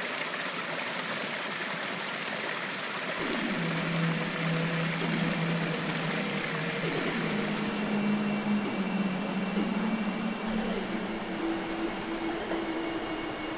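A steady rushing noise with background music coming in about three seconds in: long held notes that step up in pitch towards the end.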